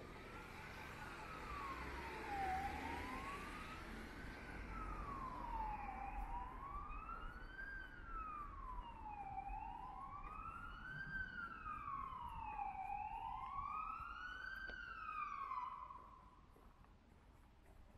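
Emergency-vehicle siren wailing, its pitch sliding slowly up and down about every three and a half seconds, over faint street traffic noise. It cuts off suddenly near the end.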